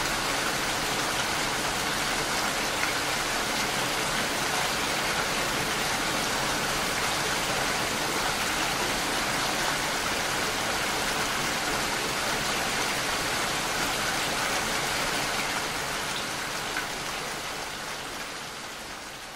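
Steady rain falling, a dense even hiss, fading out over the last few seconds.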